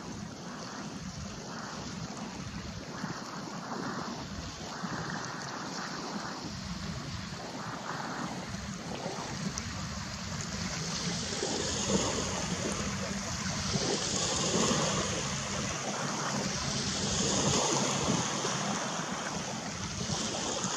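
Steady outdoor wind and water noise with soft swells, the hiss growing a little louder about halfway through.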